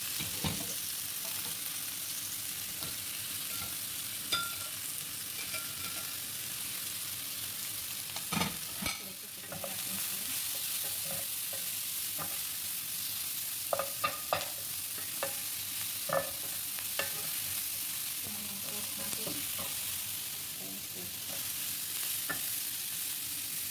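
Steak pieces, mushrooms and bell peppers sizzling steadily in a hot grill pan as a wooden spatula stirs them, with scattered knocks and scrapes of the spatula against the pan.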